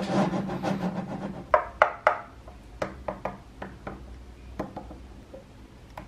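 Small neodymium magnetic balls clicking and snapping against one another as the model's walls are pressed and adjusted by hand: a dense clatter of clicks at first, three loud sharp clicks about a second and a half in, then scattered single clicks.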